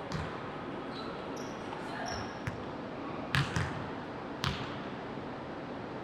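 Basketballs bouncing on a hardwood court, several sharp knocks spaced irregularly, with short high sneaker squeaks near the start over the steady hubbub of a gym.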